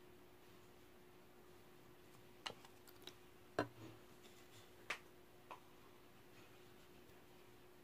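Marbled slime being handled, giving a handful of short sharp clicks and pops in the middle stretch over a faint steady hum.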